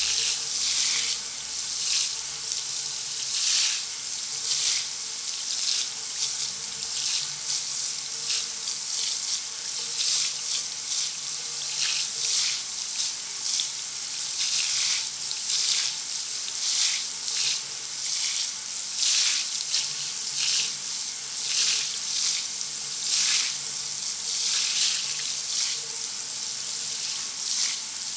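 Shower running: a steady spray of water hissing down, its splash swelling and easing every second or two.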